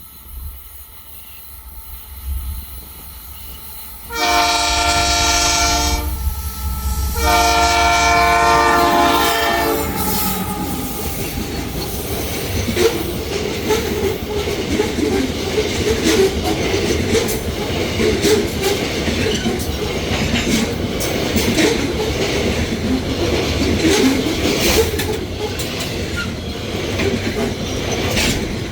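Freight train locomotive: a low rumble, then two long horn blasts a few seconds in. The train then passes with a steady rumble of wagons and repeated wheel clicks over the rail joints.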